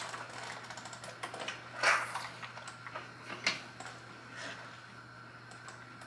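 Hand-cranked Squeezo food strainer being turned while cooked apples are pushed into its hopper with a wooden plunger, making a run of small clicks and squelches. Two louder noises come about two seconds and three and a half seconds in.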